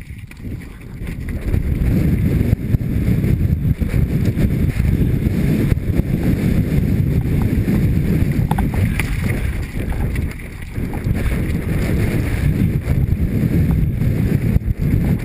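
Wind rushing over a helmet-mounted camera's microphone, mixed with tyres crunching over loose gravel and rock and the mountain bike rattling. It builds up over the first couple of seconds as the bike gathers speed down the slope.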